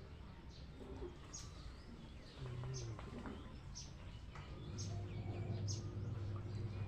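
Night chorus of calling frogs and insects after rain: short high chirps repeating about once a second over a low steady drone that breaks off for a couple of seconds in the middle.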